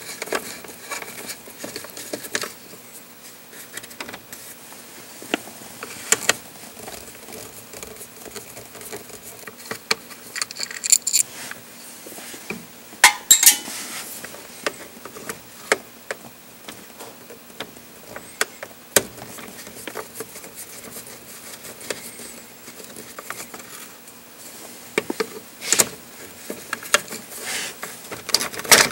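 Phillips screwdriver backing the screws out of a plastic lower steering column cover: scattered small clicks, scrapes and light metallic rattles, with a louder burst of clatter about halfway through.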